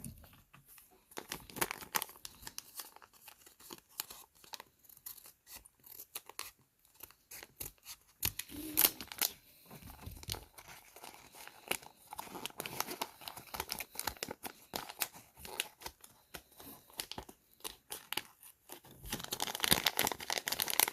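Plastic packaging crinkled and torn open by hand, with irregular rustles and clicks and a denser stretch of crinkling near the end.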